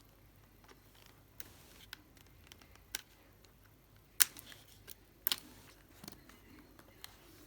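Scattered sharp clicks and taps of hand tools and plastic laptop parts being handled, the loudest about four seconds in and a quick double click just after five seconds.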